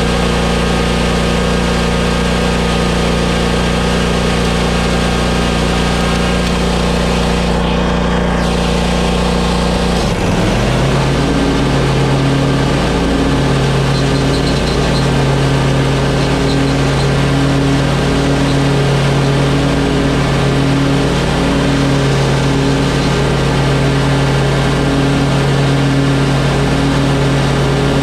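Commercial lawn mower engine running steadily at high speed. About ten seconds in its note dips briefly and settles into a new steady pitch with a faint regular pulsing, as the load on the engine changes.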